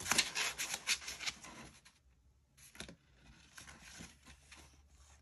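Cardstock and patterned paper rustling and scraping as hands handle and flex a stack of paper pockets, busy for about the first two seconds, then only a few faint rubs.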